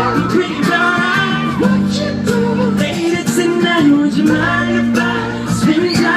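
Live pop music with singing over guitar and a backing track, amplified through a venue sound system.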